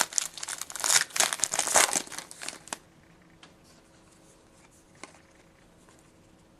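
Wrapper of a hockey card pack being torn open and crinkled by hand for about the first three seconds, then quiet apart from a faint steady hum and a single click about five seconds in.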